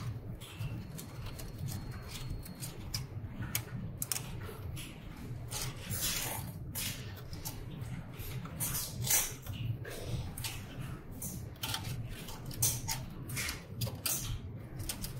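Flexible flat print head ribbon cables being handled and bent by hand: irregular rustling with light plastic clicks and ticks, over a low steady hum.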